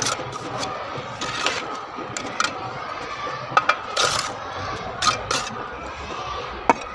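Bricklaying: a steel mason's trowel clinking and tapping on fired clay bricks and mortar as bricks are set, in irregular sharp clinks and knocks.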